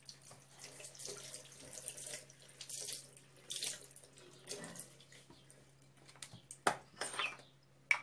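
Tap water splashing into a ceramic bathroom sink as a scouring sponge is wetted and rubbed, coming in short uneven spurts through the first half. Two sharp knocks follow near the end and are the loudest sounds.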